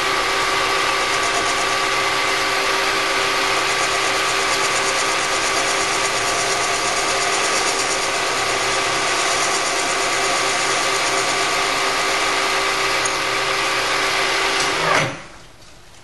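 Lathe running with a steady mechanical whine while its tool cuts a snap ring groove into a small block Chevy piston. It stops about fifteen seconds in.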